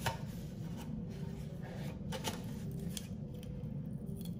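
Cardboard whisky box and glass bottle being handled: soft rustles and a few small taps and clicks, over a low steady hum.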